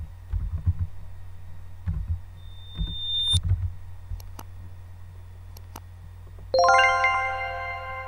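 A few soft keyboard taps and clicks, then about six and a half seconds in a bright electronic chime sound effect strikes and rings out, slowly fading.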